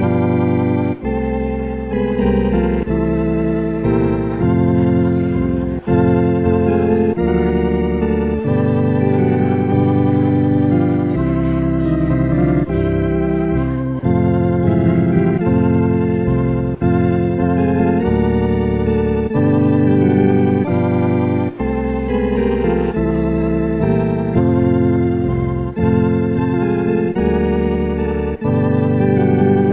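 Organ playing slow, sustained chords over a bass line, the chords changing about once a second.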